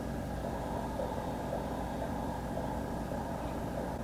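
Steady low hum of room background noise, with a few faint steady tones and no speech.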